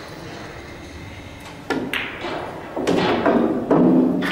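Pool shot: a cue tip clicks sharply into the cue ball, and a moment later the cue ball clicks into the object ball. From about three seconds in comes a low, knocking rumble that grows louder: the potted ball rolling through the coin-op table's ball-return channel.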